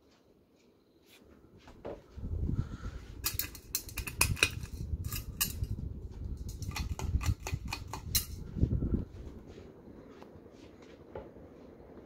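1988 Hunter Original ceiling fan running, its oil-bath motor freshly oiled. About two seconds in, a low rumble sets in, with a fast run of sharp clicks and rattles from about three to eight seconds in; it dies down about nine seconds in.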